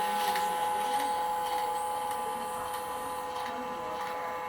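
Small electric machine motor running steadily with an even whine, running well after being repaired.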